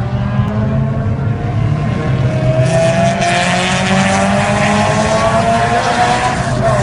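Honda EK4 Civic engine running through a Skunk2 MegaPower aftermarket exhaust, with a steady low drone. From about a third of the way in, the engine note rises slowly as the revs climb, then drops back near the end.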